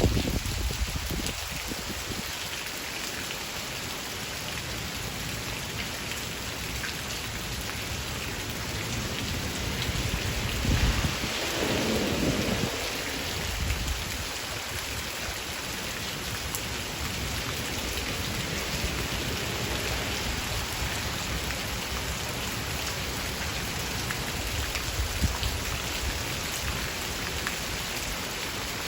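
Steady rain shower falling, with a low rumble of thunder that swells about eleven seconds in and dies away over a couple of seconds.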